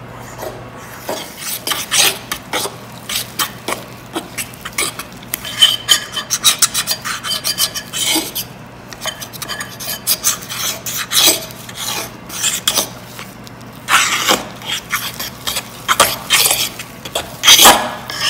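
Metal fork stirring a flour-and-warm-water mix in a mixing bowl as it comes together into frybread dough, with rapid, irregular scrapes and clicks of the fork against the bowl.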